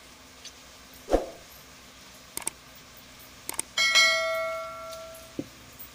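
Subscribe-button animation sound effect: a short thump about a second in, a few mouse clicks, then a notification-bell ding that rings out and fades over about a second and a half.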